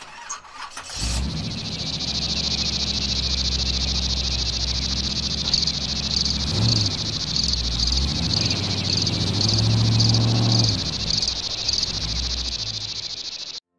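Outdoor ambience: a steady high chirring with a regular pulse of a few beats a second over a low rumble. It cuts off suddenly near the end.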